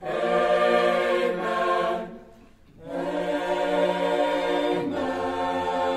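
Chamber choir singing long held chords to close the song, with a short break about two seconds in and a change of chord near the end.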